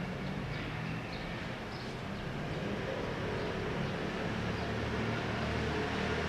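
Low, steady engine rumble of motor traffic over a background hiss, growing slightly louder toward the end.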